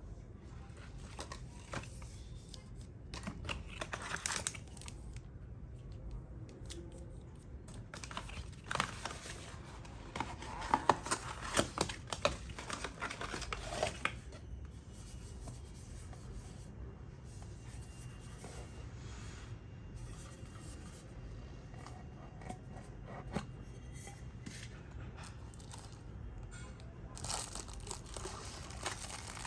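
Packaging being handled during a watch unboxing: crinkling and tearing in bursts, loudest in the first half and again near the end, with a few small clicks between.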